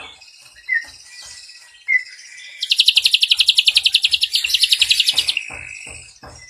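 Ashy drongo singing: two short chirps, then a fast, high rattling trill of about fourteen notes a second, the loudest part, lasting nearly three seconds. A faint steady high tone runs underneath.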